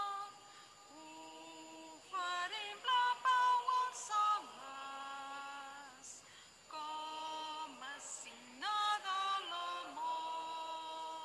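A woman singing the closing phrases of a slow Catalan hymn, one voice on long held notes with short gliding runs between them, the last note dying away near the end.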